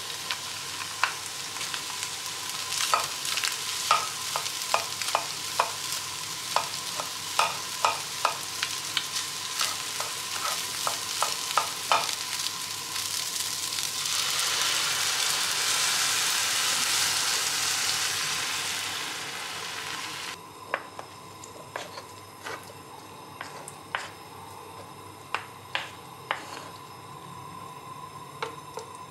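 Rice and egg frying in a nonstick pan, sizzling, with a wooden spoon clicking against the pan as it is stirred. About fourteen seconds in, liquid poured into the hot pan sets off a louder hiss lasting several seconds. The sizzle then drops to a quieter simmer with occasional spoon taps.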